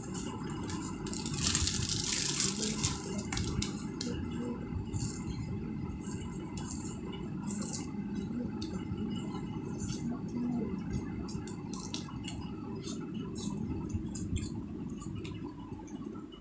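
Two children chewing and crunching candy close to the microphone: scattered soft clicks and crackles over a steady low rumble.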